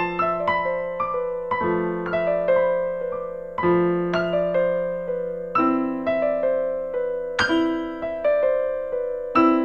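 Solo piano music playing flowing broken chords, with a new low bass note about every two seconds.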